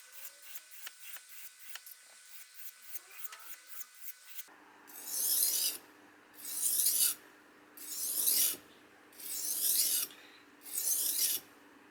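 Kitchen knife blade stroked along a wet whetstone: long rasping strokes, about one every second and a half, starting a little under halfway through. Before them there are only faint light clicks.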